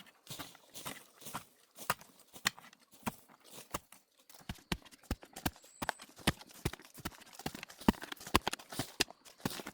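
Rapid, irregular sharp knocks and clicks, several a second, like hard objects being struck or clacked together.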